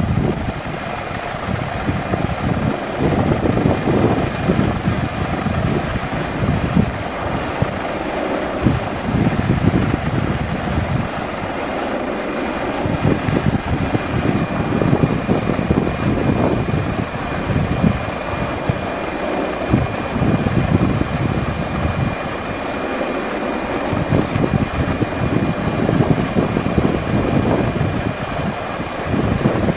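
Helicopter rotor and engine noise heard from on board, a steady loud rush with a low rumble that keeps rising and falling, and a faint steady high-pitched whine.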